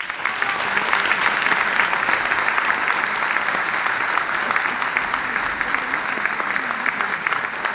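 Audience applauding: dense, steady clapping that breaks out as soon as the song ends.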